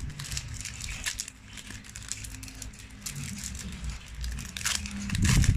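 Trading cards and their crinkly pack wrapper being handled and shuffled: rustling and crinkling throughout, with a louder low bump near the end.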